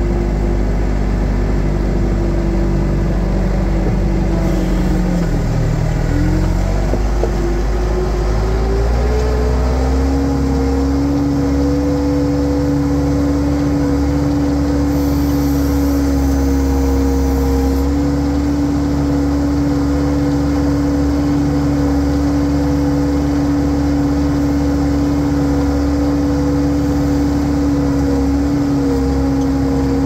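Case 450 skid steer's four-cylinder diesel engine running loudly under the operator as the machine drives. Its pitch sags and wavers from about four seconds in, climbs back up by about ten seconds, and then holds steady.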